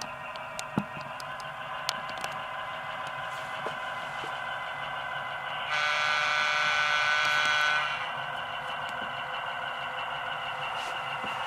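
QSI sound decoder in an HO-scale SW8 switcher playing a steady EMD 567 diesel engine sound through the model's small speaker, with a few light clicks early on. Near six seconds in, a single horn blast sounds for about two seconds.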